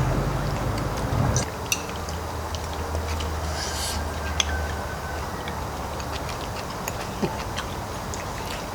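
Light scattered clicks and taps of eating utensils against dishes as people eat.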